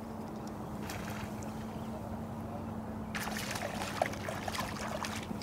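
A hooked fish splashing and thrashing at the water's surface beside the boat, starting about three seconds in, over a steady low hum.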